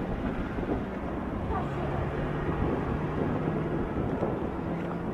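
Steady street ambience: a rumble of traffic and general town noise, with faint voices mixed in.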